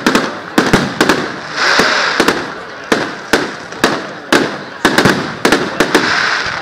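Aerial fireworks bursting in quick succession: sharp bangs, about three a second, with two short stretches of hiss between them.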